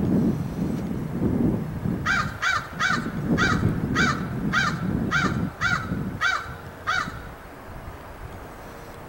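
Crow cawing close to the microphone: a run of ten caws about two a second, starting about two seconds in and stopping about seven seconds in, over a low rumbling noise.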